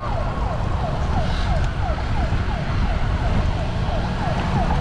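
Wind buffeting the microphone of a camera riding on a moving bicycle, with a siren sounding throughout in quick repeated falling chirps, about three or four a second.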